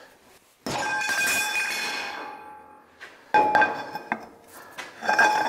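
Steel pipe wrench and cheater pipe clanking as they are moved: a sharp metal knock about half a second in rings on for about two seconds, then two more clanks, near three and five seconds, ring more briefly.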